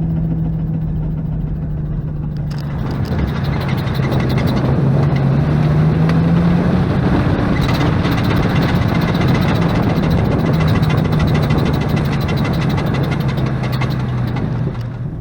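Jeep Cherokee XJ driving, its engine pulling up in pitch a few seconds in, with rapid, even ticking from a failing front-axle U-joint.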